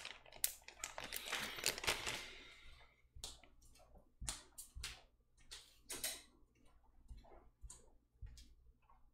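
Plastic bag of keyboard switches rustling and clicking as it is handled and set down, then scattered small clicks and knocks for the rest of the time.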